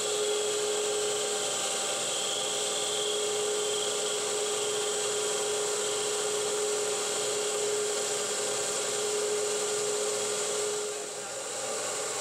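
9x20 benchtop metal lathe, converted to CNC, running steadily as a cutoff tool takes facing cuts on a metal spacer, with a steady hum from the machine. The hum drops away and the sound dips briefly about eleven seconds in.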